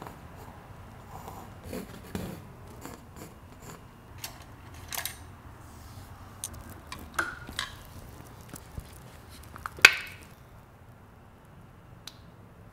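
Scattered small clicks, taps and knocks of painting supplies being handled: paint bottles, brushes and a palette. One sharper click comes about ten seconds in.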